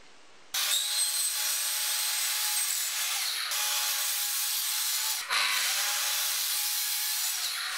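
Festool plunge-cut track saw running along its guide rail, cutting the oak veneer overhang off the edge of a veneered plywood panel: a steady motor whine over the noise of the blade in the wood. It starts about half a second in and breaks off briefly about five seconds in before running on.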